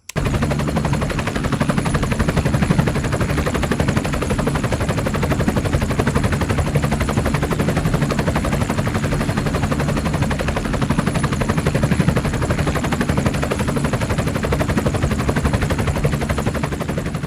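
Small DC hobby motor running at speed and spinning a toy helicopter's rotor, a loud, steady, rapid fluttering chatter that starts abruptly.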